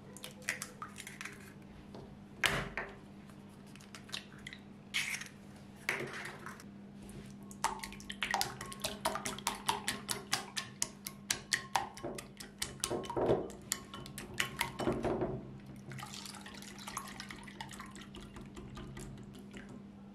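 Eggs cracked against a glass bowl with a few sharp knocks, then beaten with a whisk: quick, rapid clicking strokes against the glass for about eight seconds. Near the end these give way to softer liquid sounds as the whisk works through the thinner egg-and-milk mixture.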